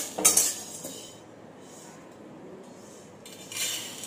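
Metal spatula scraping and clinking against a metal kadai as dry-roasted chana dal and seeds are tipped out onto a steel plate, loudest just after the start. A second, shorter clatter of the pan near the end.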